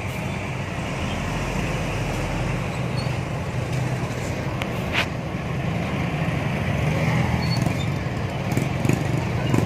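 Large coach buses' engines running with a steady low drone as the buses pull out slowly, and one short sharp high sound about halfway through.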